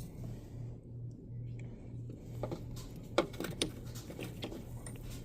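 A few irregular sharp clicks and knocks, about halfway through, from tools and engine parts being handled during spark-plug removal, over a low steady hum.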